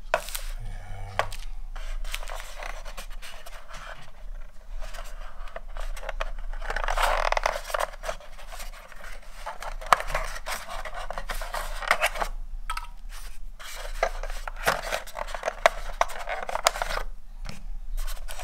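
Hands lifting accessories out of a white cardboard box insert: packaging scraping and rubbing with scattered light clicks, the scraping loudest about seven to nine seconds in.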